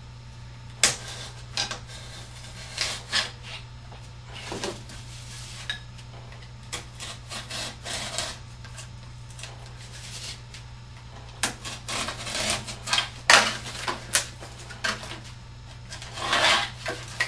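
Box cutter slicing through corrugated cardboard, an irregular series of short scratchy strokes with a few longer drawn cuts.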